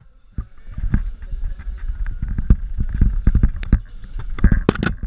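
A caver squeezing through a narrow rock passage: clothing rustling and gear scraping and knocking against the cave wall, with the camera brushing the rock. Irregular knocks and scrapes over a dull handling rumble on the microphone, busiest in the second half.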